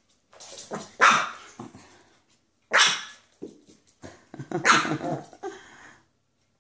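Pet dog barking in play during a game of fetch: a string of sharp barks, three of them loudest, about a second, under three seconds and nearly five seconds in.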